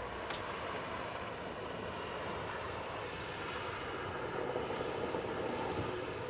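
Steady vehicle noise with a low hum, and a short tick just after the start.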